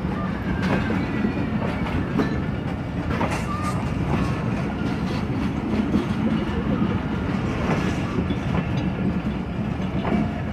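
Passenger coaches of a departing train rolling past, a steady rumble with wheels clicking over the rail joints and a few brief faint squeals.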